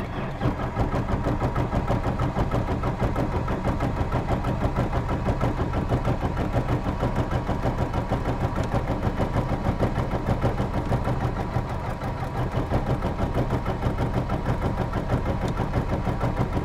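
Piston aircraft engine being turned over by its starter without firing, a steady, evenly pulsing cranking sound. The ignition switch is off, so the engine never catches.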